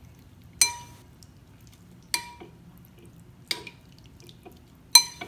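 Metal spoon clinking against the inside of a ceramic soup bowl while stirring: four sharp ringing clinks, about one every second and a half.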